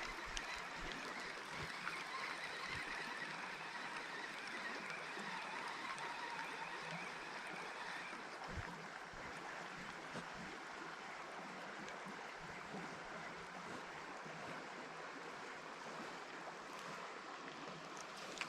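Steady rush of flowing river water, easing slightly partway through, with a few faint ticks.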